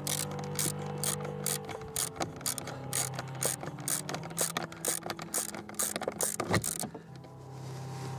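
Rapid, irregular mechanical clicking from a hand tool at work, stopping about seven seconds in.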